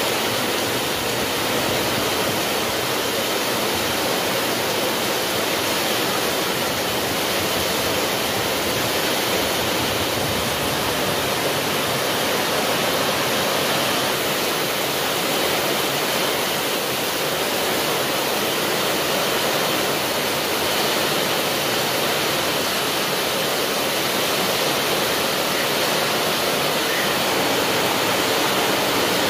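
Heavy downpour of rain falling steadily: a dense, even hiss with no let-up.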